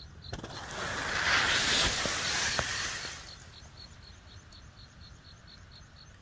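A small bird repeating a short, high chirp about twice a second, steady throughout. A rushing hiss, like a gust through grass, swells about half a second in and fades by three seconds.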